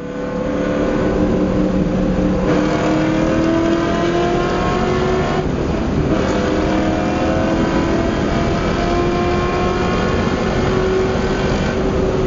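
An engine running hard and accelerating. Its pitch climbs slowly and drops back twice, about two and a half and five and a half seconds in.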